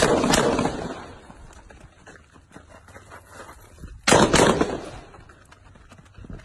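Rifle shots in quick pairs: two shots about a third of a second apart at the start, then two more about four seconds later, each pair trailing off in echo.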